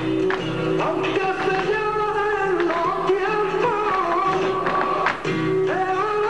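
Flamenco-style dance music with a singing voice carrying a wavering melody over sustained accompaniment, with occasional sharp percussive clicks.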